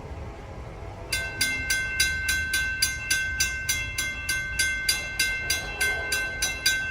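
A railroad crossing's warning bell starts ringing about a second in, striking rapidly at about four strikes a second. It is the signal that the crossing has activated for an approaching train.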